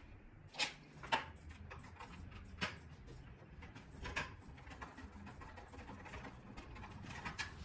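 A handful of light, scattered clicks and taps from a screwdriver and small screws as the housing of a smart bike trainer is screwed back on.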